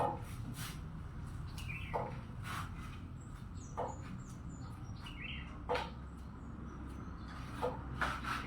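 Sharp knocks every second or two over a low steady hum, with a few faint bird chirps.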